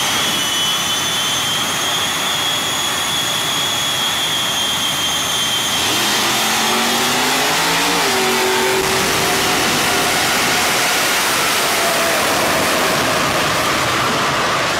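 Jet engine of a jet-powered show truck running at high power, a loud rushing roar with a high, steady whine over it; about six seconds in the whine drops away and the roar fills out.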